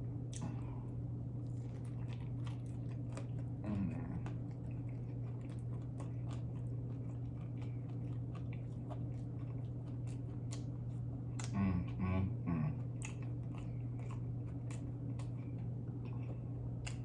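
A person chewing mouthfuls of cheeseburger and fries close to the microphone, with many small wet mouth clicks and bites. Brief hums of the voice about four seconds in and again about twelve seconds in.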